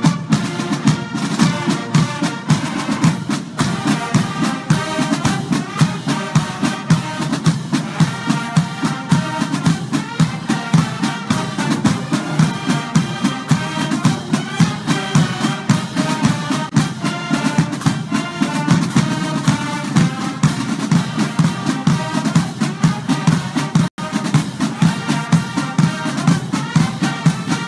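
Background music with a fast, steady drum beat and a melody over it, broken by a split-second drop-out near the end.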